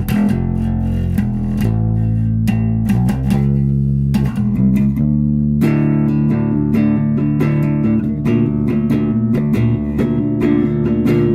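Electric bass guitar played through an Orange OBC 112 bass cabinet: a run of plucked notes, some left ringing, getting fuller and busier about halfway through.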